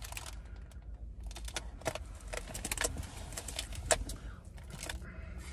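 Irregular light clicks and rustles from hands handling food and its paper and plastic packaging, over a low steady rumble.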